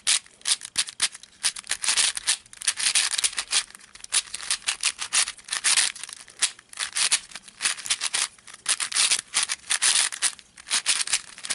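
A new 3x3 puzzle cube being turned quickly by hand: a rapid, uneven run of dry plastic scrapes and clicks as the layers slide past each other, sort of like sandpaper. The cube is not yet broken in, a bit tight on certain sides and prone to locking up.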